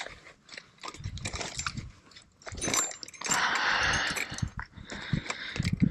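Handling noise of hands working gear: scattered clicks, knocks and rustling, with a denser rush of noise lasting about a second a little past halfway.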